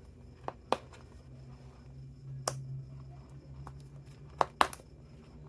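Small cardboard product box being handled as its seal sticker is removed: a few scattered sharp clicks and taps, three of them close together near the end, over a low steady hum.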